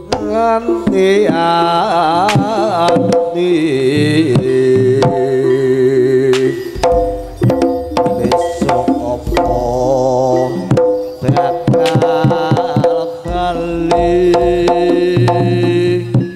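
Live Javanese gamelan accompaniment for a rampokan dance: rapid hand-drum (kendang) strokes over long held gong and metallophone tones, with a wavering melody line bending in pitch above.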